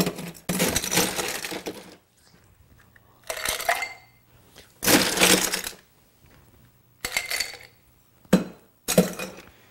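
Ice cubes dropped into a glass mixing glass, clinking and clattering in about six separate bursts as it fills.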